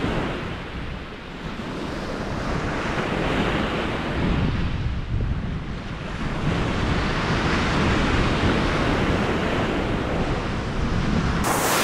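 Ocean surf breaking and washing up the beach in slow swells, with wind buffeting the microphone. The hiss turns sharper just before the end.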